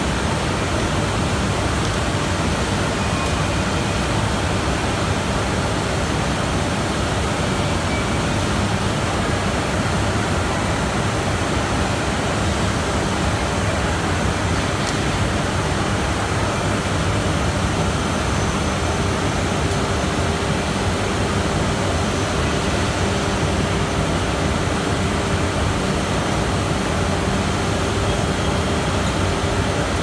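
Mesh-belt veneer dryer running: a steady, even rush of machine noise with no breaks, and a faint steady hum joining about two-thirds of the way through.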